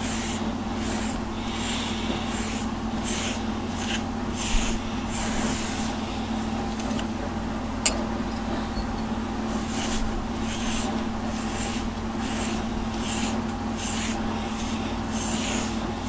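Pet brush drawn through a cat's fur in short repeated swishes, about two a second, with a lull in the middle.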